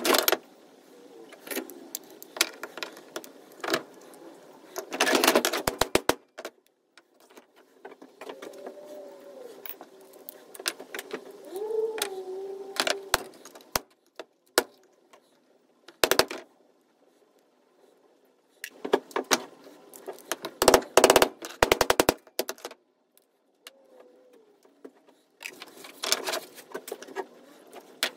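Hand tools knocking and clinking against brass expansion-valve fittings as they are taken apart to get the springs and pins out. The knocks come in short clusters of sharp metal strikes, with a fast run of them about two-thirds of the way through and quieter stretches between.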